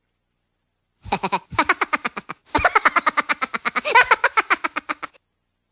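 Comic sound effect added in editing: a voice-like sound, rapidly pulsing with wavering pitch, in three bursts, the last and longest starting about two and a half seconds in.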